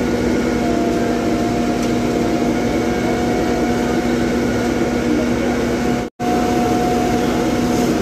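Diesel engines of an asphalt paver and dump truck running steadily as they lay asphalt, a constant drone with a steady hum. The sound cuts out for an instant about six seconds in.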